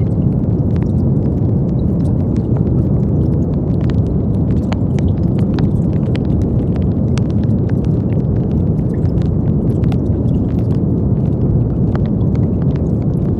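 Brown noise: a steady, deep rushing hiss with most of its weight in the low range, unchanging throughout, with faint scattered clicks on top.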